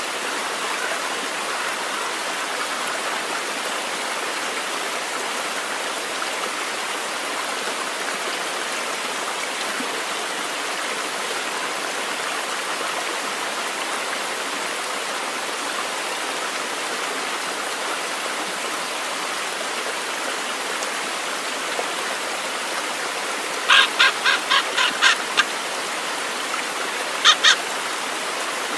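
Fast-flowing stream rushing steadily over rocks. Near the end a bird breaks in with a quick run of about six short, harsh calls, then two more.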